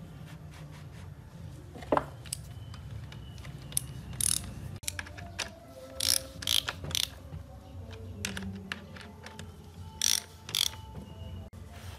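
Ratchet wrench tightening the bearing-cap bolts on the crankshaft of an old truck engine block: short bursts of rapid metallic clicking in ones, pairs and threes, with pauses between.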